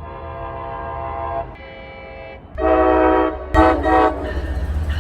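Multi-note train horn sounding a series of blasts, ending in two short toots about three and a half seconds in. The rumble and rush of the passing train then takes over.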